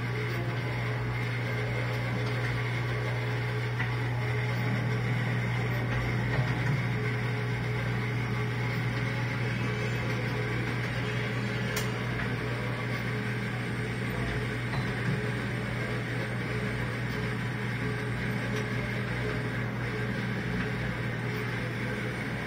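Cutaway display model of a John Deere 531 large-block diesel turning over slowly, its gears, belts and drive giving a steady mechanical hum with a low drone.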